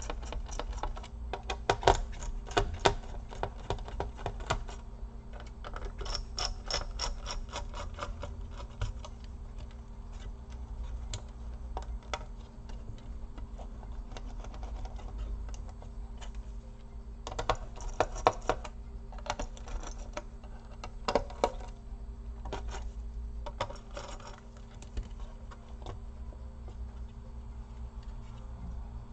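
Runs of rapid light clicks and rattles from small tools and parts being handled inside an open laptop, in bursts with quieter gaps, over a steady low hum.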